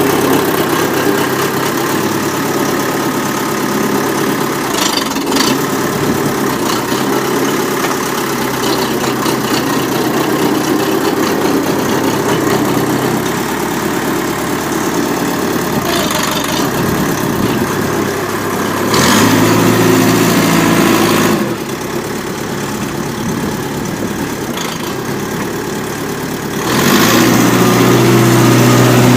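Homemade mini-tractor's engine running steadily. It grows louder twice, briefly about two-thirds of the way in and again near the end, with a steadier, deeper hum.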